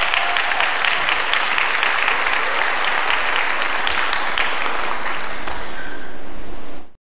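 Audience applauding, a dense patter of many people clapping that cuts off abruptly near the end.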